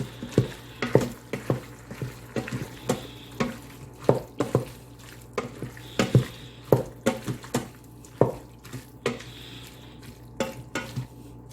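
A utensil stirring fresh tomatoes into cooked ground meat in an Instant Pot's metal inner pot, knocking and scraping against the pot in an irregular run of clicks.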